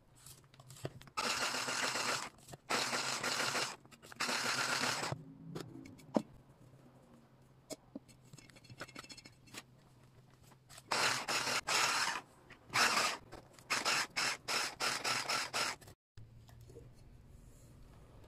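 Electric hand mixer's beaters working dry ingredients into a thick chocolate butter batter in a steel bowl, scraping against the bowl in short bursts with pauses between them. Near the end comes a run of quick, short bursts, then the sound cuts off suddenly.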